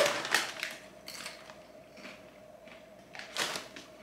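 Handling noises from food and tableware: a few short clattering, rustling sounds, the loudest right at the start and another about three and a half seconds in, over a faint steady hum.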